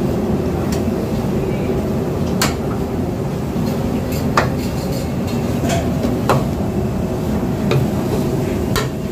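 A metal spatula stirring and scraping sliced onions in a large steel pan, clanking sharply against the pan every second or two, over a steady low rumble.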